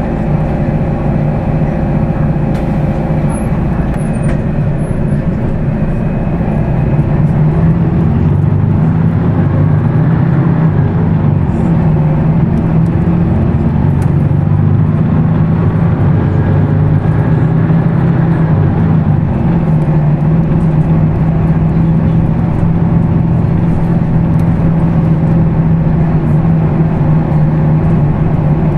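Weichai WP6NG210E50 natural-gas six-cylinder engine of a Higer KLQ6935GC5 city bus, running while the bus drives. It gets louder about seven seconds in, and its note drifts gently up and down.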